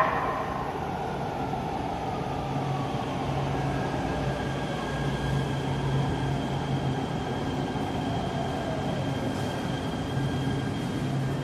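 Los Angeles Metro light-rail train pulling into the station and gliding along the platform. It rumbles steadily over a low hum, with a whine whose several tones fall in pitch as the train slows, and a thin steady high tone.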